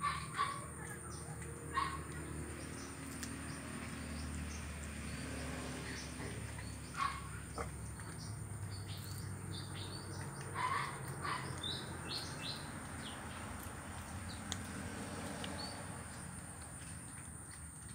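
Small birds chirping in short scattered calls, over a steady high-pitched whine and a low background rumble.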